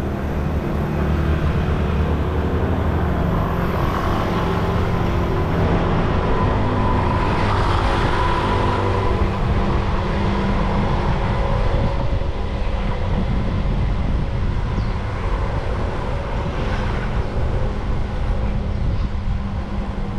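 Steady wind rumble and road noise on a handlebar-mounted GoPro while a road bike is ridden, with the hum of motor traffic on the road.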